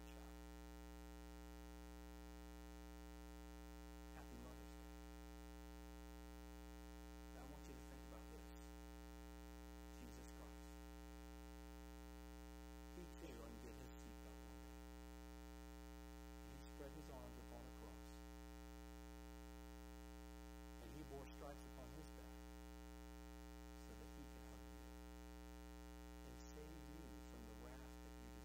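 Steady electrical mains hum with many overtones, with faint, brief snatches of a man's voice every few seconds.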